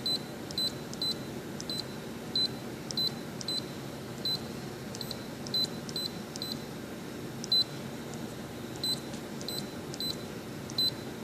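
Canon imageRUNNER ADVANCE touchscreen giving a short high beep with each key press as an email address is typed on its on-screen keyboard, about twenty beeps at an irregular typing pace. A steady low hum runs underneath.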